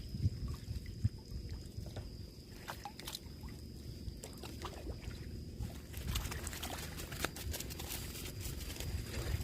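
Water sloshing and splashing, with scattered clicks that get busier about six seconds in. A thin, steady high whine runs underneath.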